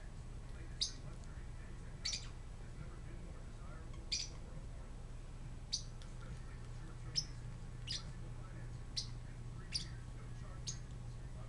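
Pet parrotlets chirping: about nine short, high contact calls spaced roughly a second apart.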